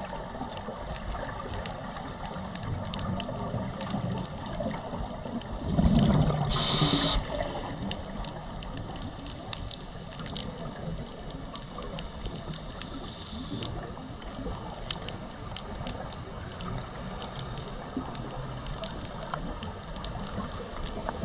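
Underwater sound from a dive camera: a steady bed of water noise scattered with small crackling clicks. About six seconds in comes a louder gurgling rush of scuba exhaust bubbles, ending in a short hiss.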